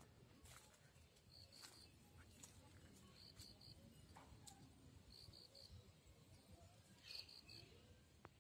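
Near silence with faint outdoor ambience: a high, short three-pulse chirp repeating about every two seconds, with a few faint clicks.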